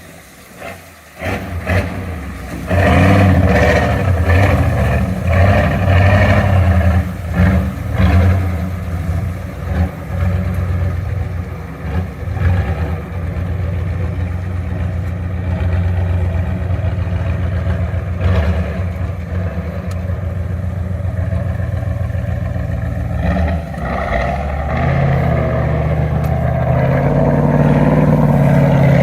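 4x4 truck engine revving hard under load off-road. The throttle surges up and down with clattering knocks over the first several seconds, then holds steadier before climbing in pitch near the end.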